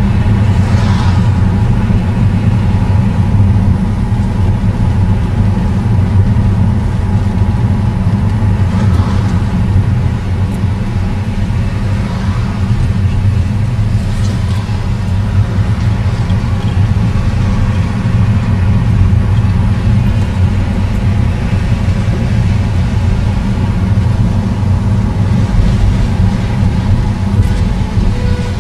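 Car engine and tyre noise on a wet road, heard from inside the cabin: a loud, steady low rumble.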